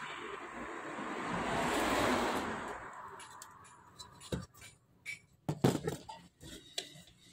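Pliers clicking and knocking against wire terminals and the stove's metal housing during wiring work, a handful of sharp separate clicks in the second half. Before them, a rushing noise swells and fades over the first three seconds.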